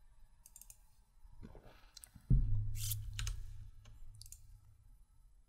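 Computer mouse clicking a few times at irregular intervals, with a single low thump about two seconds in that leaves a low hum fading away over the next two seconds.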